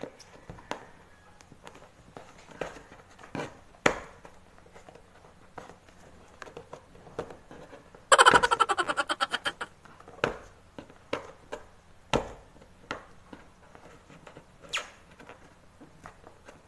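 Packing tape being ripped off a cardboard box: a rapid crackling tear about eight seconds in that lasts about a second and a half and fades out, among scattered knocks and taps as the box is handled.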